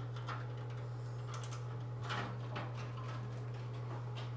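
Soft rustling and light knocks of an ear candle and its drip-guard pan being handled as they are taken off the head, over a steady low hum.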